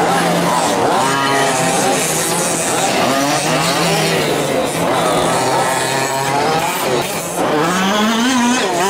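Several 1/5-scale gas RC trucks' small two-stroke engines racing, their pitch rising and falling again and again as the throttles open and close, with several engines overlapping.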